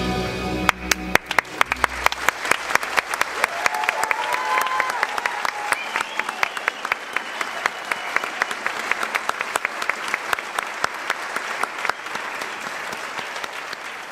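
The last held chord of the keyboard and string orchestra stops about a second in, as a concert audience breaks into applause. The clapping is dense, then thins and fades near the end.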